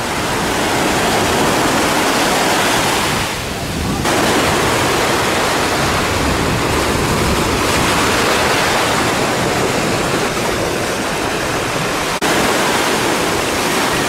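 Small waves breaking and washing up on a sandy beach, a steady rushing surf noise. The sound changes abruptly about 4 seconds in and again about 12 seconds in.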